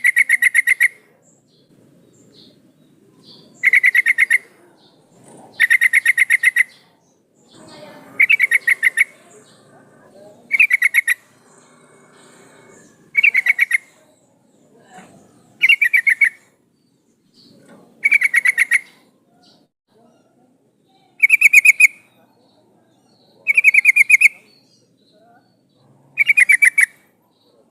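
Female yellow-vented bulbul (trucukan) calling to a male: a rapid chattering burst about a second long, repeated every two to three seconds, about eleven times.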